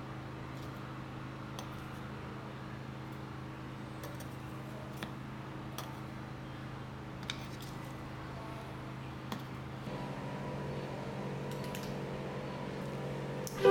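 Steady hum of a rolled-ice-cream freezer plate's refrigeration unit, a little louder about ten seconds in, with a few light clicks of metal spatulas on the plate.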